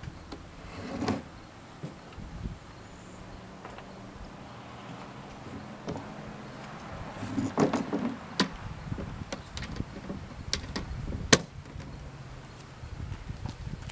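Olympia SM9 manual portable typewriter being worked: scattered clicks and clacks of its mechanism, sparse at first, then a run of sharp strikes in the second half, the loudest about three quarters of the way through.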